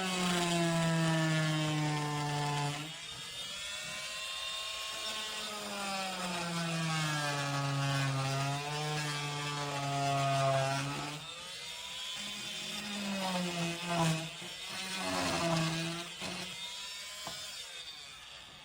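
ENVENTOR 2.5 A corded oscillating multi-tool with a cutter blade fitted, running and cutting: its motor whine sags in pitch as the blade is pushed into the work and climbs back, and the tool stops and starts again several times.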